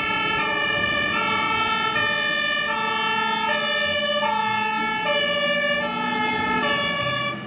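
German fire engine's two-tone siren (Martinshorn) sounding, alternating between a high and a low note about every three-quarters of a second.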